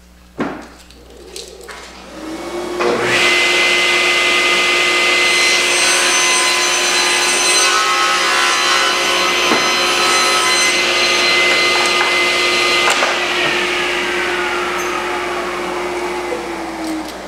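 A SawStop table saw and its dust-collection vacuum start up a couple of seconds in and run steadily with a hum and a whine for about ten seconds. They are then switched off and wind down, the pitch sliding lower until they fall quiet near the end. A few knocks come before the start.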